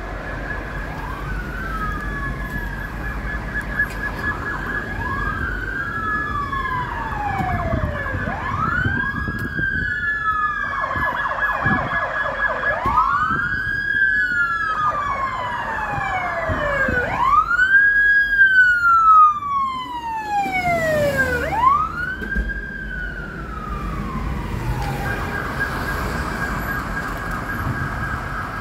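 Several emergency-vehicle sirens wailing at once, each wail rising quickly and falling slowly, the wails overlapping and loudest about 18 seconds in. A steady high warbling siren tone runs under them at the start and again near the end, over the rumble of city traffic.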